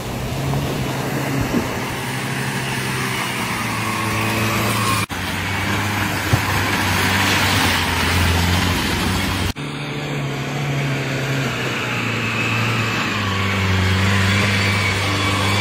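Maruti Suzuki Gypsy's petrol engine running hard under load off-road through mud, its note rising and falling, with a rush of mud and tyre noise in the middle stretch. The sound changes abruptly twice where the footage is cut.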